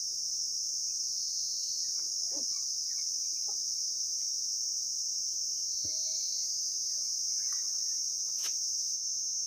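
Steady, high-pitched drone of an insect chorus, unbroken and even in level.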